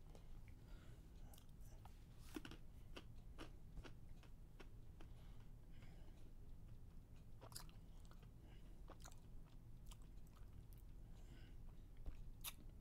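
Near silence: a low steady hum with scattered faint clicks and small crackles at irregular intervals.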